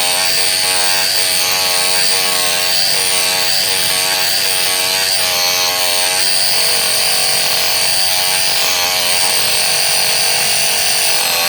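A power saw running hard as it cuts into a tree root, its pitch dipping and recovering again and again as it bogs under load.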